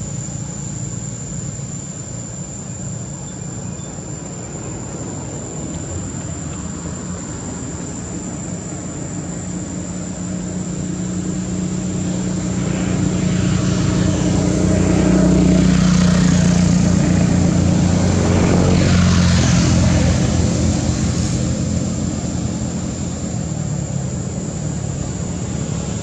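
Low engine drone of a passing motor, growing louder from about halfway through, peaking, then easing off toward the end, with a thin steady high-pitched whine throughout.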